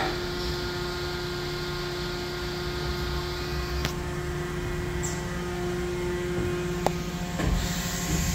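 DMG Mori NTX 1000 CNC machine running a cutting cycle with coolant spraying inside its closed enclosure: a steady machine hum with several steady tones over a light hiss. Two sharp ticks come about four and seven seconds in.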